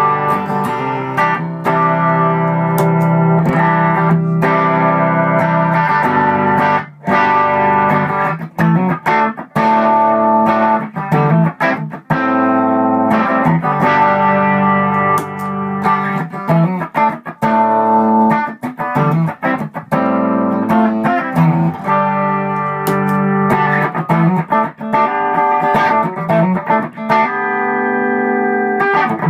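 Electric guitar played through a Xotic EP Booster, strumming chords and picking notes, with a short break about seven seconds in. The booster's internal switch 2 is set for its warmer, darker Echoplex-type tone, and the gain boost is at its minimum setting.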